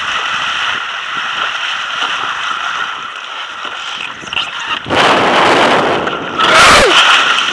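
Wind buffeting the microphone over water rushing past a windsurf board for the first few seconds. About five seconds in, a much louder rush of wind and splashing sets in, peaking a second and a half later with a short falling whistle, as the windsurfer goes down and the rig hits the water.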